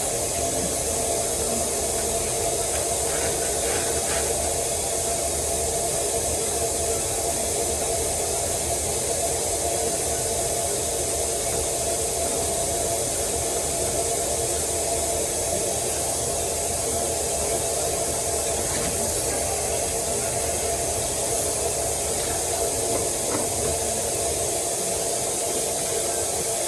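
Tap water running steadily into a kitchen sink, with a couple of faint knocks of containers being handled.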